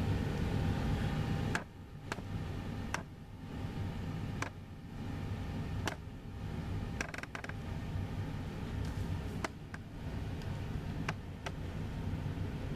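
Low steady rumble heard from inside a room, dropping quieter about a second and a half in, with a scattering of sharp clicks.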